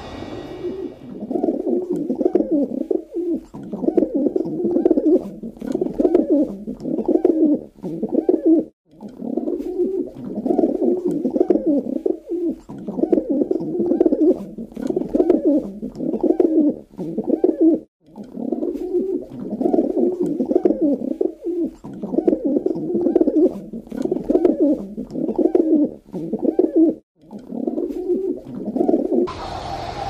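Domestic pigeons cooing: many overlapping, low, rolling coos in continuous phrases, broken by short sudden gaps about every nine seconds.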